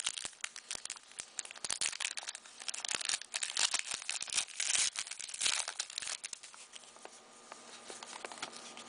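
O-Pee-Chee hockey card pack wrapper crinkling and tearing as it is opened by hand. The crackle thins out over the last few seconds, giving way to quieter rustling of the cards as they are handled.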